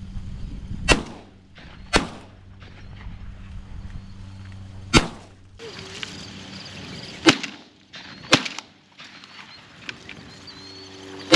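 Shotgun firing at doves: about six sharp, loud reports spaced a second or more apart.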